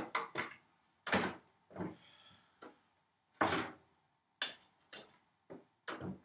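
Tools and the lid of a wooden tool chest being handled: about ten irregular hard wooden knocks and clunks, the loudest about three and a half seconds in.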